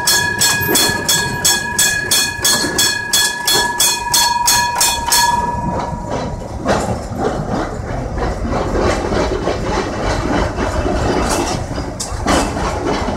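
Kolkata tram running on its tracks: a rapid, even clatter of about four clacks a second over a steady ringing tone for the first five seconds, then a rumble of the moving tram car.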